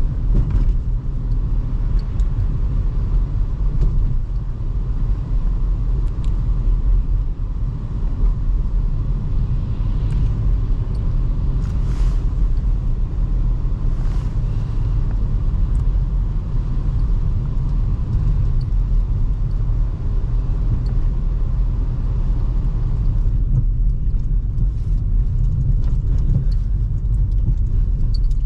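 A 2005 Toyota Highlander with its 3.3 L V6 driving on a snowy road: a steady low rumble of engine and tyres, with a few faint clicks.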